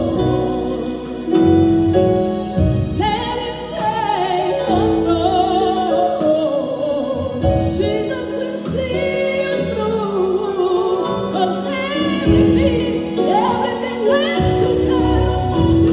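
Live singing: a woman's lead vocal through a microphone and PA, holding long notes over electric keyboard accompaniment.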